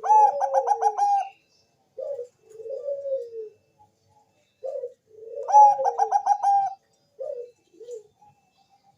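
Zebra dove (perkutut) cooing: two loud song phrases, each a quick run of about five staccato coo notes, one at the start and one about five seconds in, with softer, lower falling coos between them.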